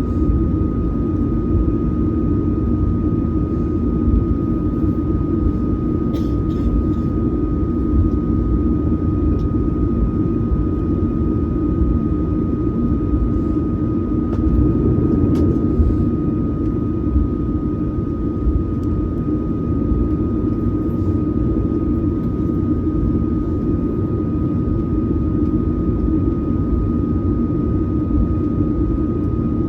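Boeing 737-900ER cabin noise heard from a rear economy window seat: the steady roar of its CFM56 jet engines and airflow, with a thin steady whine over it. A few faint clicks come through the roar.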